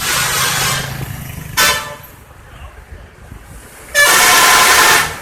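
Indonesian bus 'telolet' multi-tone air horns sounding in bursts: a blast of about a second and a half, a brief toot, then a loudest blast of about a second near the end.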